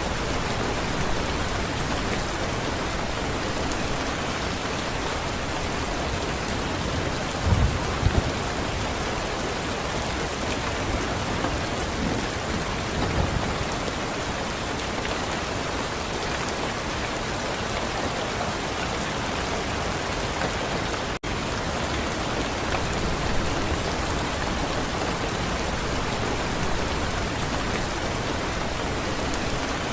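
Steady rain falling, an even hiss of drops. A few brief low thumps come through it about a quarter and about two fifths of the way in, and the sound cuts out for an instant just past the middle.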